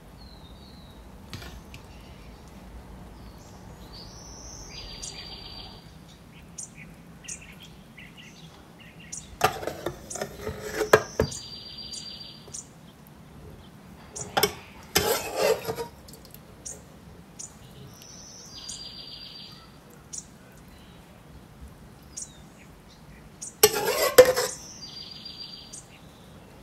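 Utensils clattering and scraping against a cooking pot in three short bursts while biryani is being layered. A short high bird trill repeats every few seconds in the background.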